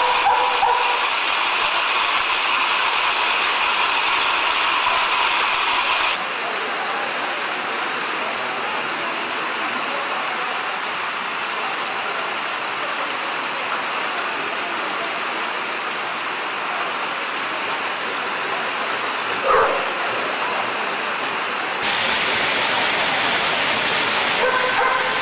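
Steady rushing, rumbling din of dogs running on wooden-slat non-motorized treadmills, mixed with the murmur of a watching crowd. There is one short, sharp sound about 19 seconds in.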